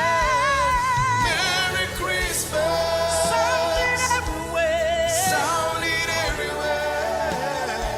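Gospel song: singers holding long, wavering vocal lines over a full band accompaniment, with no clear words.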